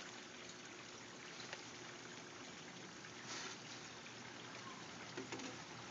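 Faint, steady trickle of running water from a backyard aquaponics system.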